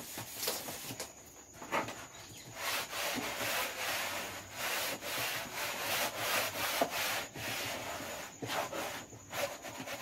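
Scrubbing a plastic shelf unit by hand: a few scattered strokes, then a steady run of back-and-forth scrubbing from about two and a half seconds in.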